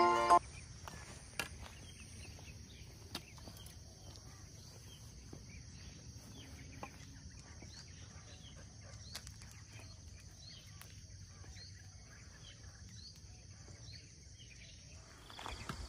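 Quiet rural dawn ambience: a steady high-pitched insect drone with scattered short bird chirps and a few faint clicks. About a second before the end the drone drops away and a louder, uneven rustling begins.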